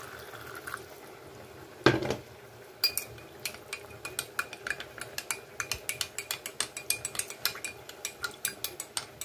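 A metal spoon stirring a cornstarch and chicken-broth slurry in a glass cup, clinking against the glass about four times a second. It opens with a faint pour of broth, and one louder knock comes about two seconds in.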